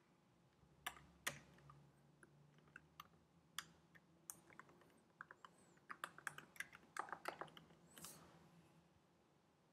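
Faint typing on a computer keyboard: irregular single keystrokes, coming quicker in a run near the end.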